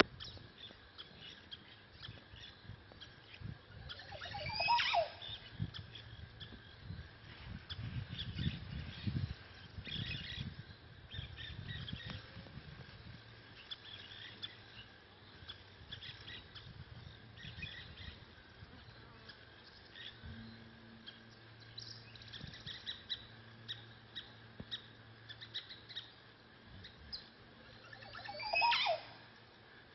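Montezuma oropendola song, heard twice: a short build-up ending in a loud call that falls steeply in pitch from high to low, once about five seconds in and again near the end. Scattered softer bird chirps fill the gap between.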